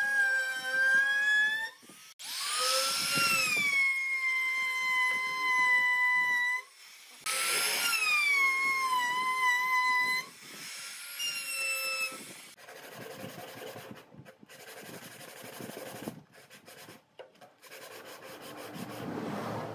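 A handheld trim router runs with a high whine while cutting a profile into a pine board. It stops and restarts twice, the pitch sagging after each start. In the second half it gives way to quieter rasping strokes of sandpaper, wrapped around a dowel, rubbed along the routed groove.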